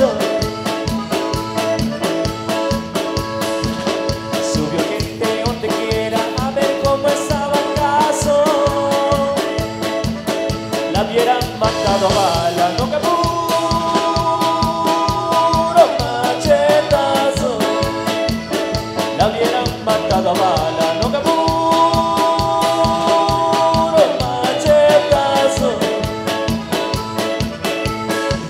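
Live band playing a corrido costeño: six-string electric bass, keyboard, congas and drum kit keeping a steady, even beat under held chords.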